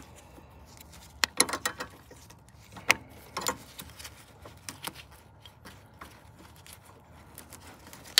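Irregular light metallic clicks and taps of a wrench working a brake line nut loose on the proportioning valve.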